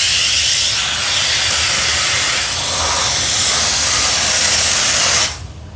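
Wet steam jetting from an Optima Steamer CMF's wand as it flushes a mini-split's coil: a loud, steady hiss that cuts off suddenly near the end.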